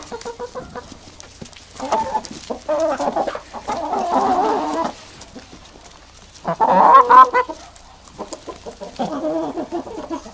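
A flock of chickens clucking and calling in short bouts, a second or so each, with quieter gaps between; the loudest bout comes about six and a half seconds in.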